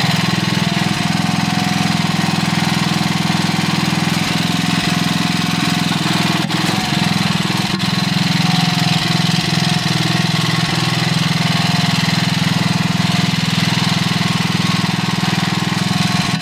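Single-cylinder engine of a two-wheel walk-behind tractor running steadily at idle.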